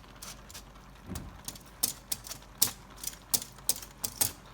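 A cooking utensil tapping and clicking against a pot while boiled rice is spread over the vegetables: a run of sharp clicks, about three a second.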